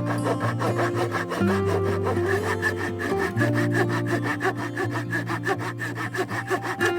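Small folding wood saw blade of a Victorinox Ranger Grip 55 pocket knife cutting through wood with quick, even back-and-forth strokes.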